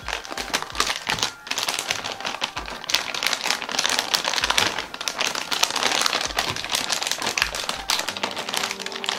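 Metallized anti-static bag crinkling and crackling as a graphics card is slid out of it, a dense run of sharp crinkles with brief lulls.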